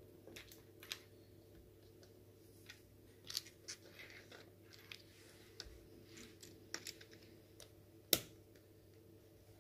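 Small plastic Lego bricks being handled and pressed together: a scatter of light clicks, with one sharper snap about eight seconds in.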